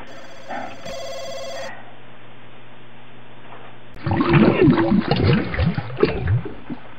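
A loud, irregular stomach gurgling and rumbling sound effect from about four seconds in, the sign of a sudden urgent need for the toilet. About a second in, a brief electronic ringing tone.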